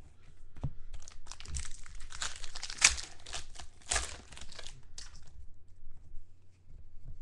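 Foil wrapper of a Prizm football card pack being torn and crumpled by hand: a dense run of sharp crinkling that starts about a second in and stops about five seconds in, followed by light handling of the cards.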